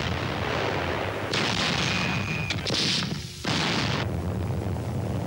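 Battle noise on a 1944 newsreel soundtrack: artillery fire and shell explosions over a continuous low rumble, with a brief dip about three seconds in.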